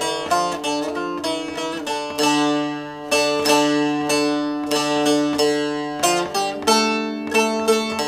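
Long-neck bağlama (uzun sap saz) played with a plectrum: a quick picked Turkish folk-song (türkü) melody in uneven 9/8 and 11/8 time, over ringing drone strings. Some longer notes are held in the middle.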